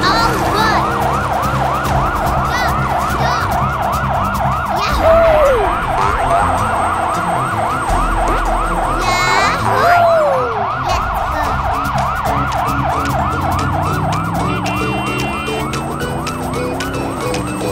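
Cartoon emergency siren sound effect wailing quickly up and down, about three sweeps a second, without a break. Two short falling glide sound effects come in about five and ten seconds in.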